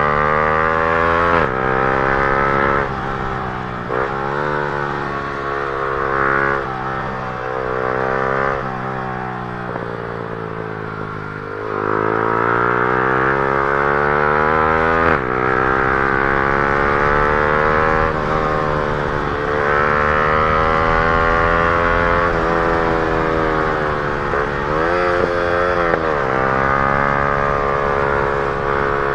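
Yamaha R15 M's single-cylinder engine running through an aftermarket Akrapovic full-system exhaust under riding load. The note climbs with the revs and drops sharply three times, and about a third of the way in it falls away slowly as the bike slows, then climbs hard again.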